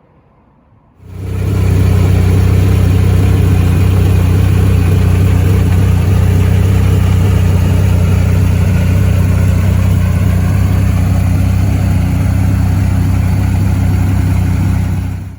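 MG Metro 6R4's 3.0-litre V6 rally engine running steadily and loud. It starts abruptly about a second in and cuts off suddenly at the end.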